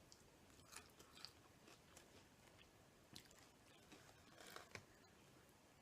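Faint chewing of fried chicken, with scattered soft mouth clicks and smacks.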